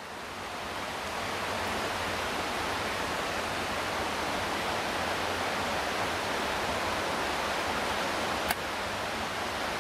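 Steady rush of water from a mountain stream or waterfall in a rocky gorge, with a single sharp click near the end.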